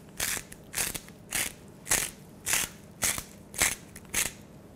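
Hand-twisted salt mill grinding coarse salt, eight short crunching grinds about every half second.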